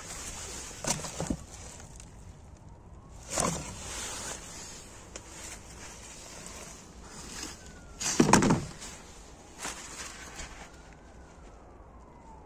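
Junk being handled at a metal dumpster: a few brief knocks and scrapes, the loudest a little past halfway, over a faint siren rising and falling far off.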